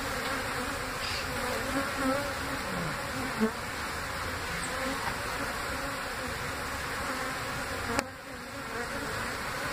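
A large mass of honey bees buzzing steadily as the rescued colony crowds over the top of a hive box and works its way inside. A single sharp click sounds about eight seconds in.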